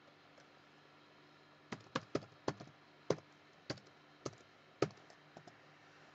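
Typing on a computer keyboard: about ten irregular keystrokes, starting a little under two seconds in and lasting some four seconds, as a short command is entered.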